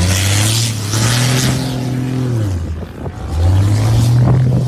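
Kamaz rally truck's diesel engine revving hard on soft sand: the pitch climbs and holds, falls away just before the 3-second mark, then climbs again. A rushing hiss sits over the engine in the first second or so.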